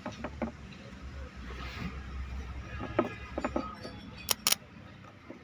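Small metal parts of a starter motor's brush assembly being handled, giving a few light knocks and two sharp clicks about four seconds in, over a low steady hum.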